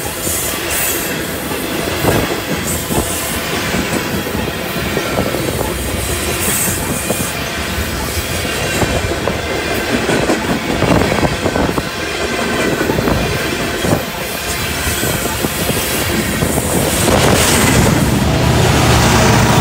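Freight train tank cars rolling past close by, their steel wheels clacking over the rail joints with a faint wheel squeal. About 17 seconds in, a mid-train EMD SD70ACe diesel locomotive comes by and adds a loud low engine drone.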